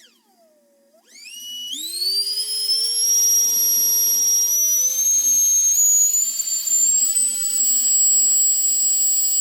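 Electric ducted fan with a brushless motor spinning up about a second in, its high whine climbing in several steps as the throttle is raised, then holding steady near the top with a rush of air beneath it.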